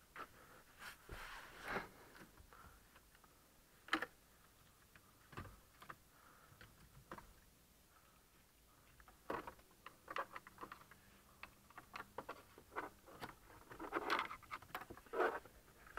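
Cables being fed and pulled through a car's plastic dashboard trim by hand: scattered light rustles, taps and clicks. There is a sharper click about four seconds in, and busier handling around ten and fifteen seconds in.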